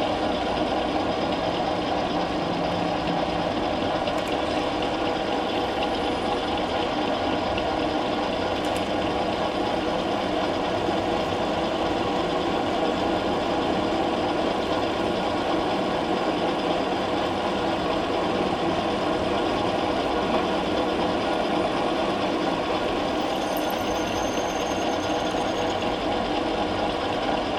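A metalworking machine tool running steadily, its motor and gearing making an even hum and whir that does not change.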